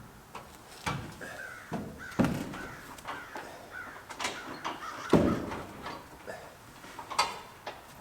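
Irregular knocks and clunks of wood and tools being handled, the loudest about five seconds in.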